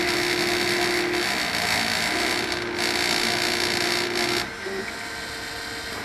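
Homemade CNC milling machine running, its rotary-tool spindle whirring with a steady, mid-pitched motor whine that stops and starts again as the axes move; the whole sound drops noticeably quieter about four and a half seconds in.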